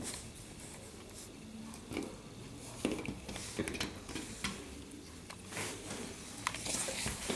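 Light scattered clicks and scratches of a snorkie puppy's claws and paws moving on a tiled floor, busiest around the middle and again near the end.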